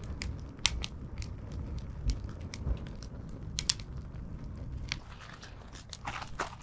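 Wood campfire crackling, with irregular sharp pops over a low rumble.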